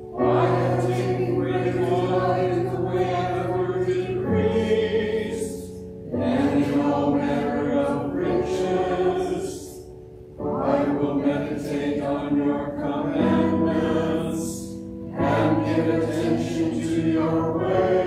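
Small church choir chanting a psalm, sung in phrases a few seconds long with notes held steadily and short breaths between them.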